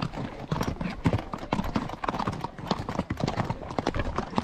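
A horse's hooves clopping on a rocky trail in an uneven, irregular rhythm as it picks its way downhill step by step.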